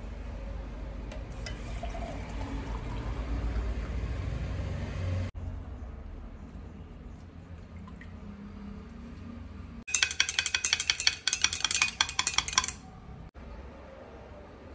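Green juice poured into a glass mug, then a metal spoon clinking rapidly against the glass while stirring, about ten seconds in, for roughly three seconds.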